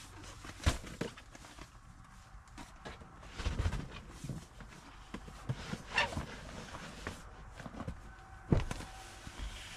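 Camping gear being moved around in an SUV's cargo area: scattered knocks and thumps of items set down and shifted, with rustling in between. The loudest thump comes about eight and a half seconds in.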